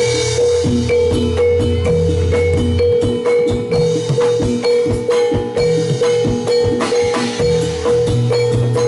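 Jathilan gamelan music played loud through a sound system: an evenly repeating pattern of struck metal mallet instruments over drums and a bass line.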